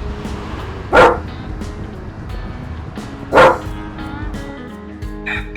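A dog barks twice, about a second in and again about two and a half seconds later, over background music.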